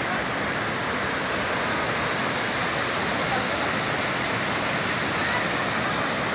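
Fast-flowing river water rushing steadily and loudly, like a waterfall or rapids, with no breaks.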